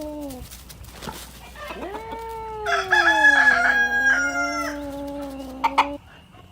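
A rooster crowing, loudest between about three and four and a half seconds in, over a long yowling cat call whose pitch sags slowly. Two sharp clicks come near the end.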